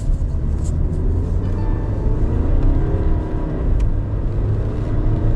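Stage 3–tuned Skoda Octavia A5 driving under acceleration: engine running under load over a steady low road rumble, its note climbing and then dropping in the middle of the stretch.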